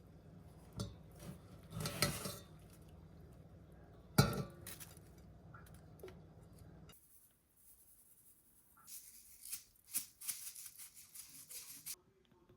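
Kitchen utensils and dishes knocking and clinking during cooking: a few sharp knocks in the first half, then a quick run of scratchy cutting or scraping sounds near the end.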